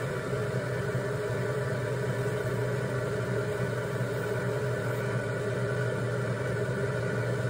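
Electric potter's wheel running at a steady speed, its motor humming evenly.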